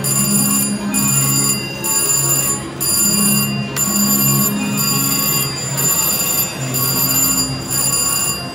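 VGT Hunt for Neptune's Gold video slot machine spinning its reels: electronic ringing and chiming tones that pulse about once a second, with a lower tone coming and going underneath.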